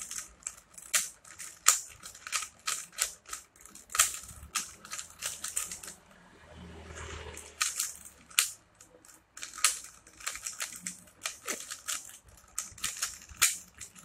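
Plastic Rubik's cube being turned by hand: rapid, irregular clicking and clacking as its layers snap through quarter turns, the left-hand algorithm (L prime, U prime, L, U) being run through, with a short pause about halfway.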